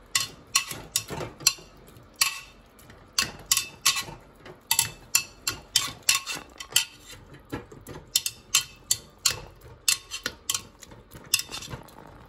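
A metal wire potato masher clinking and knocking against the inside of an aluminium pressure cooker while mashing freshly cooked, soft vegetables, in irregular strokes about two or three a second.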